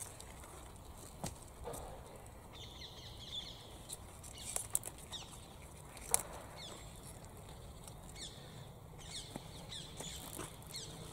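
Cavolo nero leaves being picked and handled: leafy rustling with scattered crisp snaps and crackles. Short, high, falling chirps come and go in the background.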